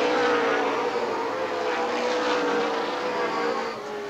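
A pack of super late model stock cars' V8 engines running at racing speed, several engines droning at slightly different pitches together and easing off a little near the end.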